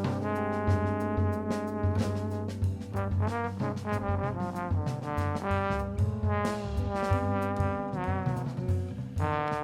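Instrumental music: a horn melody over a bass line and a beat.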